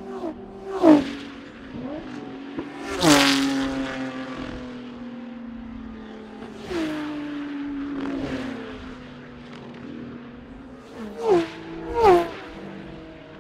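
Historic racing cars passing at speed one after another, each engine note dropping sharply in pitch as it goes by. There are about five passes, the loudest about three seconds in and two close together near the end, with other engines running on underneath.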